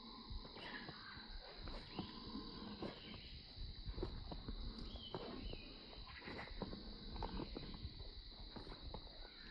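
Sundarbans mangrove forest ambience: a steady high-pitched insect drone, with irregular faint clicks and knocks and a few short bird chirps.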